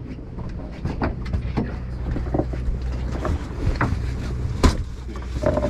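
Steady low hum of the party boat's engine, with scattered small clicks and knocks and one sharp knock near the end.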